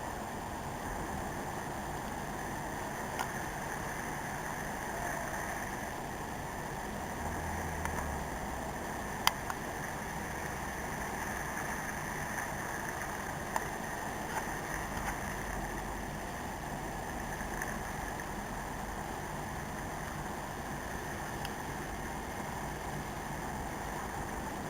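Steady outdoor background noise, a constant hiss and rumble, with a few faint clicks and one sharper click about nine seconds in.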